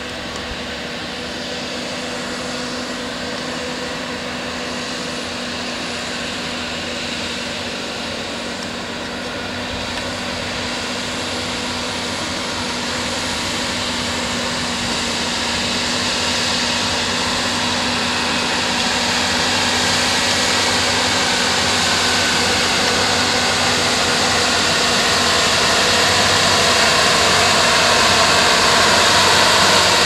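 Massey Ferguson 7618 tractor's six-cylinder diesel running under load as it pulls a five-furrow plough through the soil: a steady engine drone that grows louder as the tractor comes closer.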